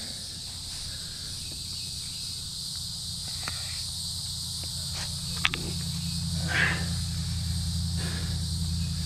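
A steady high insect chorus over a low steady rumble, with a few light crunches of footsteps on dry leaf litter and a brief rustle a little past the middle.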